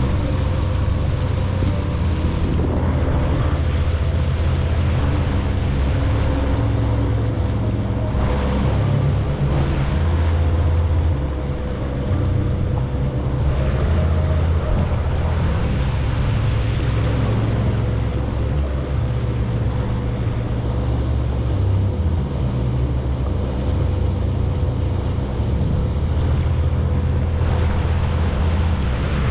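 Jet ski engine running steadily under way, with a constant whine and water rushing and splashing against the hull, swelling every few seconds.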